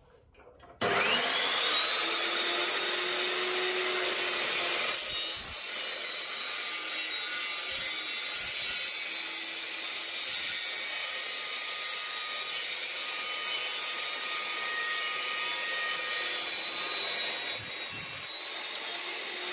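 Evolution S355CPS cold-cut metal saw with a 355 mm steel blade starting up, its motor whine rising and levelling off. About five seconds in the blade bites into a 75 mm steel tube and cuts steadily through it, the whine sagging under the load. Near the end it breaks through with a couple of knocks and the whine climbs back up.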